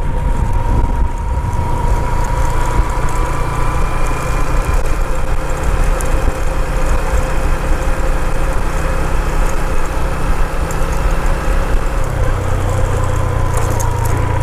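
Motorcycle engine running steadily while riding, under a constant rush of wind and road noise. The engine hum grows a little stronger near the end.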